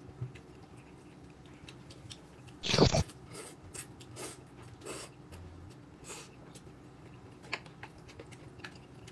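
A person eating: wet chewing and mouth noises, with one loud slurp about three seconds in.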